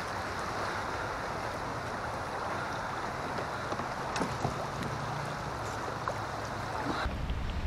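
Steady rush of river current. About four seconds in there is a faint knock, and near the end the sound cuts to a lower, quieter rumble.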